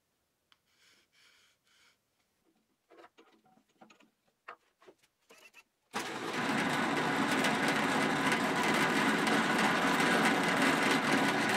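Faint taps and rustles of hands handling a paper protractor on plywood. About six seconds in, a benchtop drill press cuts in, running loud and steady as it drills a small hole through a wooden pivot disc.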